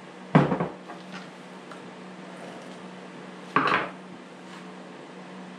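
Two short metallic clatters about three seconds apart from handling a Stihl MS 250 chainsaw while oiling its chain, over a steady low hum.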